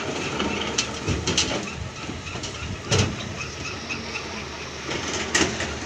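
Diesel engines running while an excavator bucket drops broken quarry rock into a steel dump-truck bed, with several loud rock-on-steel knocks: a quick cluster about a second in, a single one about three seconds in and another near the end.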